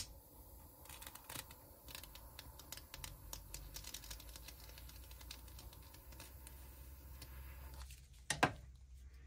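A handheld butane torch lighter clicks alight and hisses steadily while flaming a syringe needle to sterilise it. The flame cuts off after about eight seconds, followed by a sharp knock.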